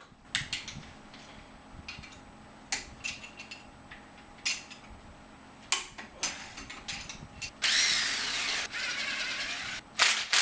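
Hand tools clinking and tapping against engine parts, then a cordless impact wrench runs for about two seconds near the end, with a loud sharp knock just after it stops.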